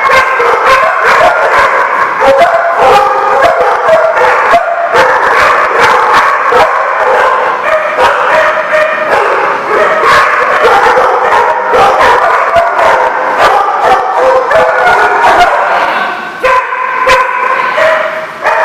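A group of dogs barking together, loud and without a pause, their calls overlapping.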